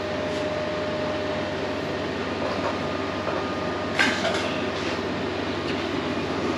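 Steady mechanical hum and hiss of running machinery, with one sharp tap about four seconds in.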